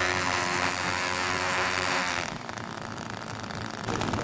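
The HP42 model's Zenoah 22cc two-stroke petrol engines running steadily on the ground. A little over two seconds in they drop back to a quieter, rapidly pulsing idle, then pick up again near the end.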